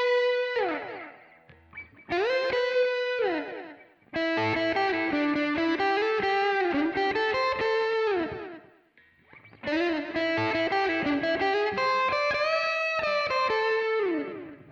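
Aria Pro II Magna series electric guitar playing improvised single-note lead phrases, with held notes that bend down in pitch. The phrases break off briefly about two seconds in and again about nine seconds in.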